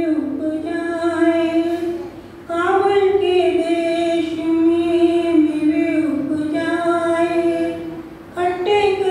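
A woman singing a Hindi bhajan solo, holding long, drawn-out notes, with no accompaniment. She breaks off twice between phrases, about two seconds in and again near the end.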